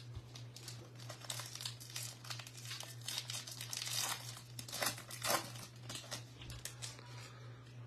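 Foil wrapper of a 2024 Bowman Baseball hobby pack crinkling and tearing as it is opened by hand: a run of crackles, loudest about four to five and a half seconds in.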